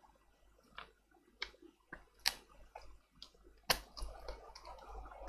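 Small, sharp clicks and taps at irregular intervals as the parts of a cheap tablet are pried and handled during disassembly. The clicks come thicker, with faint clatter between them, in the last second and a half.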